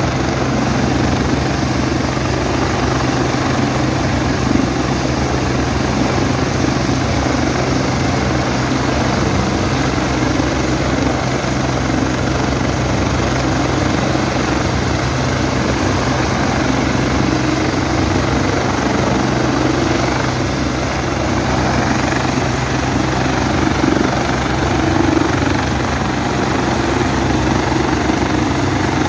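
Turbine helicopter running on the ground with its rotors turning, a steady engine and rotor sound.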